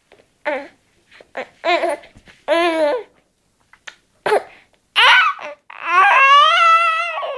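Young baby babbling and cooing in a series of short, high-pitched sounds, then one longer drawn-out coo of about a second and a half near the end.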